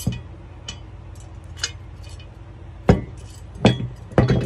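Clinks and knocks of a Torin Big Red 2-ton steel jack stand being handled, with its locking pin and small chain rattling. A few separate sharp metallic hits come over the seconds, the loudest about three seconds in, then a couple more close together near the end.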